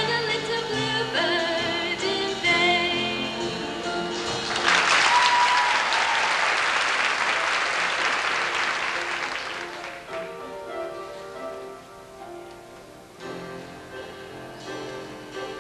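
A female solo voice with musical accompaniment sings the end of a song. About four and a half seconds in, the audience breaks into applause, which lasts about five seconds. Soft accompaniment then plays the introduction to the next solo.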